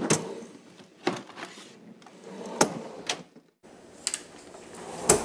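Kitchen cupboard doors and a cardboard cereal box being handled: a string of sharp knocks and clacks, roughly one a second, with a brief dropout a little past the middle.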